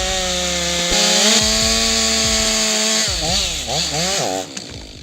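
Chainsaw running steadily at high speed, then revved up and down several times in quick succession before the sound fades out.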